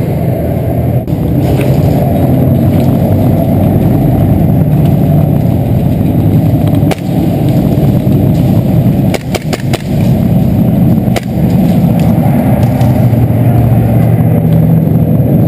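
Loud, continuous muffled rumble and clatter of movement picked up by a body-worn GoPro in its housing as the wearer moves quickly. A few sharp clicks stand out, with a quick run of them about nine to ten seconds in.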